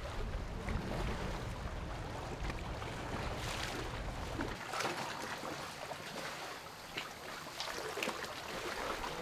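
Water splashing and lapping around a small boat at sea, with irregular splashes. Wind rumbles on the microphone for the first four seconds or so, then stops.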